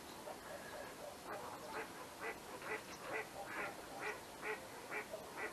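Faint goose honks, a regular series of short calls about two a second, starting about a second in.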